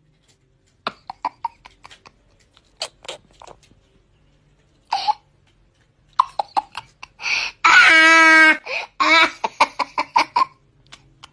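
A boy laughing: scattered short clicks and small noises at first, then from about six seconds in bursts of laughter, with one long held laughing cry a little after eight seconds.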